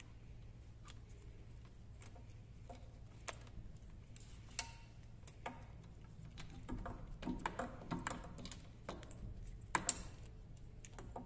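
Small clicks and light handling noise of a small-engine carburetor and its plastic fuel lines being turned in the hands as a throttle cable's threaded end is spun into it. The clicks get busier past the middle, with two sharper clicks near the end, over a steady low hum.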